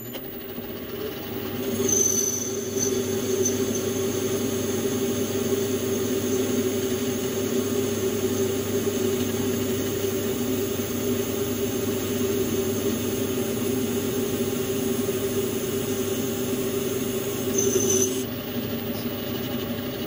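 Metal lathe running with its chuck spinning as the cutting tool takes a pass along a metal bar, a thin high squeal from the cut starting about two seconds in and stopping near the end while the machine's steady hum carries on.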